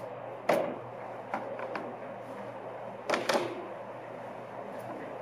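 Pneumatic nail gun firing into wooden cabinet parts: one sharp shot about half a second in, a few lighter taps, then two more loud shots close together about three seconds in, over a steady shop hum.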